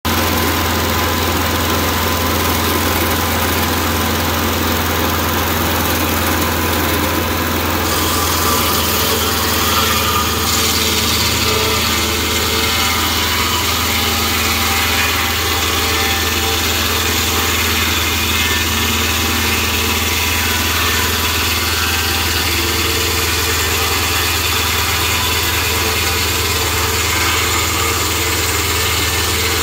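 Mobile Dimension Model 12 sawmill's engine running steadily while its large circular blade saws lengthwise through a log as the saw head is cranked along the track. The sound shifts about eight to ten seconds in.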